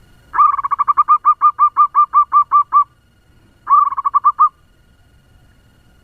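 Zebra dove (perkutut) calling a fast run of about a dozen short, evenly spaced notes, then after a brief pause a shorter burst of about six more: the quick-paced call valued in a lure bird.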